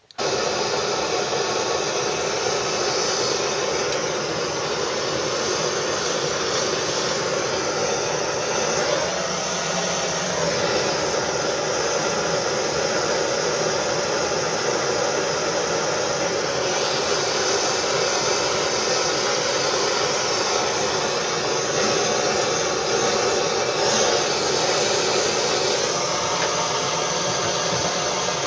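Handheld gas blowtorch burning steadily: a constant hissing rush of the flame.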